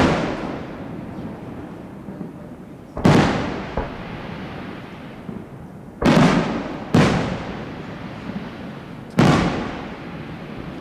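Aerial firework shells bursting: five sharp bangs a few seconds apart, each trailing off in a long fading echo.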